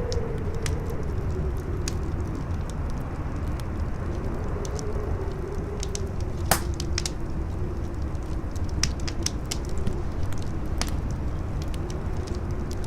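Wind howling in a low moan that slowly rises and falls, over a steady rumble, while a fire crackles in scattered sharp pops. One pop, about six and a half seconds in, is louder than the rest.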